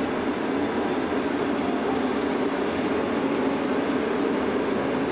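Steady rushing cockpit noise of a jet airliner on short final approach, holding an even level throughout.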